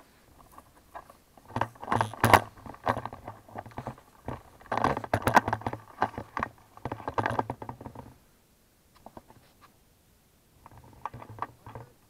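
Rustling and clattering handling noise on a body-worn action camera as its wearer moves over dry grass, coming in several bursts with quiet gaps between.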